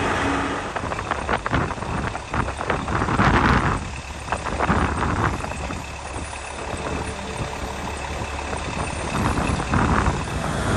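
Road traffic with a vehicle engine idling, a steady low rumble with scattered knocks and clatter, the loudest about three seconds in.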